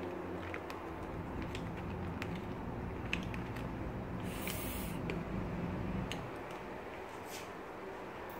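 Plastic ladle stirring and scooping soup broth in a plastic container: light clicks and knocks against the tub, with a brief splashing swish about four and a half seconds in.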